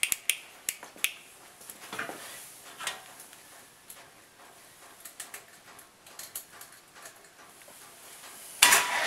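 Scattered light clicks and metallic taps, irregular and fairly faint, while work goes on at the engine to turn it to the next valve position. A louder burst of noise comes near the end.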